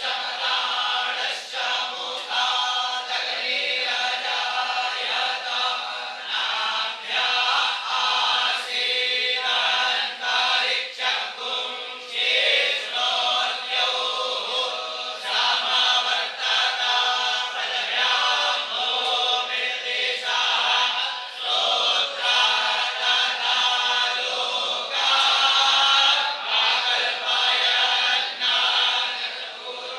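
A group of young Vedic students chanting Sanskrit mantras together in unison. The chanting runs on continuously, with brief breaks for breath every few seconds.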